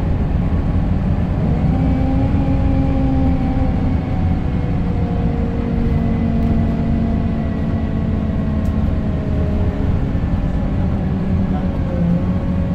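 Scania K270UB bus's five-cylinder diesel and drivetrain heard from inside the passenger saloon: a steady low rumble with a whine that slowly falls in pitch.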